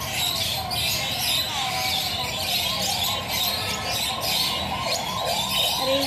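Many birds calling at once: a steady chorus of short rising-and-falling whistled calls overlapping with high chirping.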